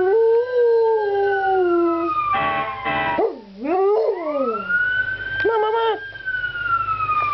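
Dog howling along with a fire truck's wailing siren. The siren rises and slowly falls twice, while the dog holds long howls beneath it that waver, dip sharply in pitch and break off.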